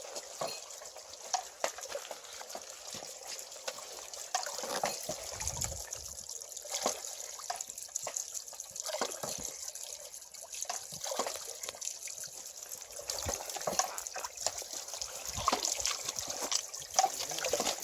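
Small water wheel turning in stream water, with water trickling and splashing off it and many irregular drips and spatters.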